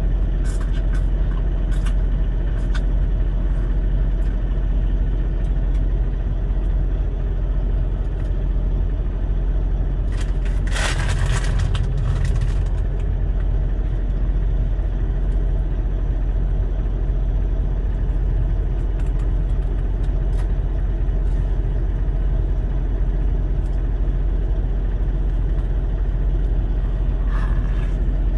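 Semi truck's diesel engine idling, a steady low rumble heard inside the cab. About ten seconds in there is a two-second burst of hiss, with light clicks scattered through.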